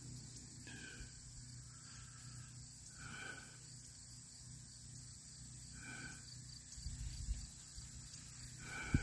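Faint rural ambience: a steady high chorus of crickets, with five short animal calls spaced one to three seconds apart over a low steady hum. A brief low rumble comes near the end.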